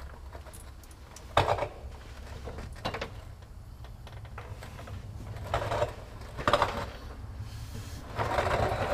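Scattered handling knocks and scrapes: a sharp knock about a second and a half in, a few more in the middle, and a longer rustling stretch near the end, over a low steady hum.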